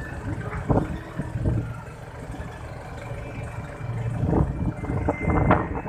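Steady low engine rumble on a car ferry's vehicle deck, with a few louder bumps, the loudest near the end.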